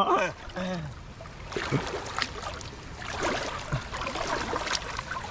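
Water sloshing and splashing irregularly as a person wades through a flooded paddy field, legs pushing through deep water.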